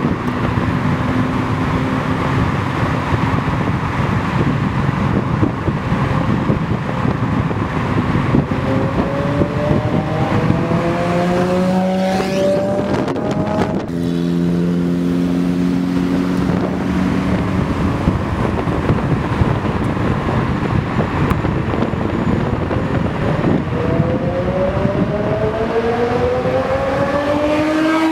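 Lamborghini Murcielago LP640-4's V12 engine heard through its aftermarket ARMYTRIX valvetronic exhaust, running steadily and then pulling hard with its pitch climbing, twice: first a third of the way in, breaking off sharply into a lower steady note, and again near the end.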